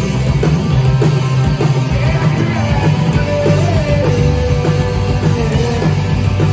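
Rock band playing live: distorted electric guitars and bass over a steady drum-kit beat. A sung note is held for about three seconds in the middle, bending slightly as it goes.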